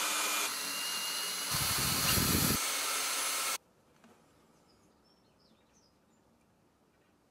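Cordless drill running as it bores a dowel-pin hole into a broken lime-wood bowl half, with a heavier rumble as it bites about a second and a half in. It cuts off suddenly about three and a half seconds in, leaving quiet room tone with a few faint high chirps.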